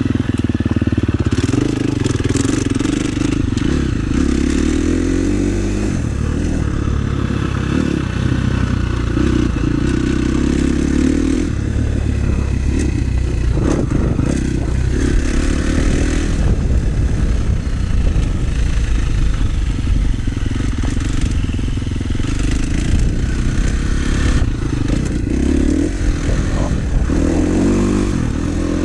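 KTM 350 SX-F's single-cylinder four-stroke engine, ridden hard around a motocross track, its revs rising and falling again and again through the gears and corners.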